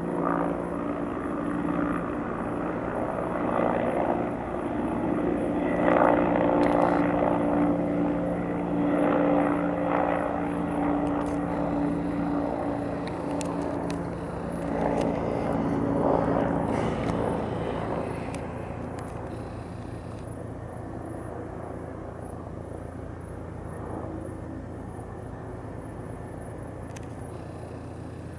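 Firefighting helicopter with a bucket slung on a long line, flying low: a steady rotor and turbine sound that swells and pulses, loudest about six seconds in, then dies down to a lower steady drone over the last ten seconds.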